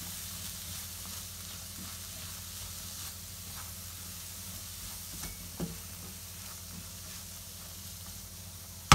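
Chopped vegetables sizzling gently in a non-stick frying pan while being stirred with a silicone spatula, with a few soft scrapes. A sharp knock comes right at the end.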